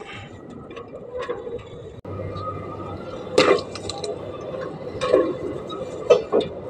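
Water balloons bursting under a rolling tyre, with splashes of water. There are several sharp pops: the loudest is about halfway in, another comes a second and a half later, and two smaller ones follow near the end.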